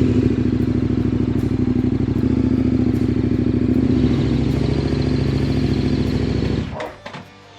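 KTM 1190 Adventure R's V-twin engine running steadily as the motorcycle is ridden at low speed; the engine sound cuts off abruptly near the end, followed by a few faint knocks.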